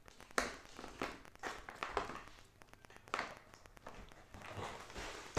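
Light rustling and small taps from a tiny doll sandal and other small toy pieces being handled, in scattered short bursts.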